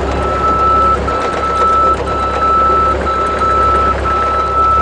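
A vehicle warning alarm sounding a steady high tone in long beeps about once a second, each with a brief gap, over the low, steady running of a mini excavator's engine.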